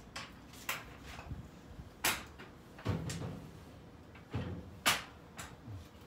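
Scattered sharp knocks and clunks from work handling gear, with two duller thuds about three and four and a half seconds in.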